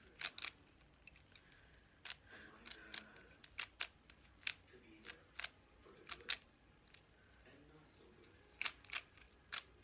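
A 3x3 speed cube's layers being turned quickly by hand, plastic clicking and clacking in irregular runs of several sharp clicks a second during a timed solve.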